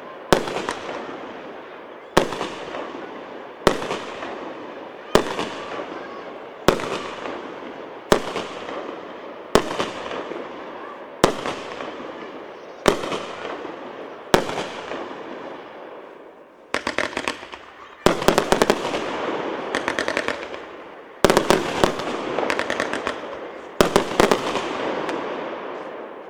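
A 138-shot 1.2-inch firework cake battery firing. Single shots go off about every second and a half, each with a long fading tail. Past the middle it changes to quick volleys of several shots fired close together.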